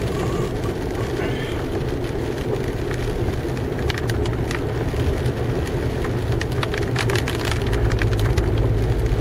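Inside a moving car on a wet street: steady low engine and tyre rumble with road hiss, scattered light clicks from about halfway through, and the low rumble growing louder near the end.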